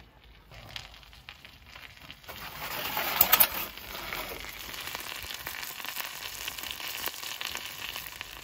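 Hot fat and meat juices sizzling and crackling in the dish under a beef Wellington fresh from a wood-fired oven, loudest with a few sharp pops about three seconds in.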